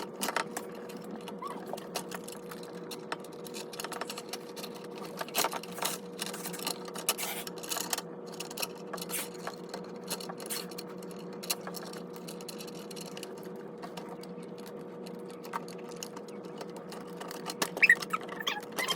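Irregular clicks, taps and scrapes of small parts being handled and fitted by hand, over a steady hum.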